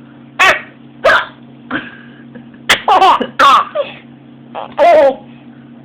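A person hiccuping repeatedly, short sharp catches of breath every second or so, mixed with bursts of laughter from another person.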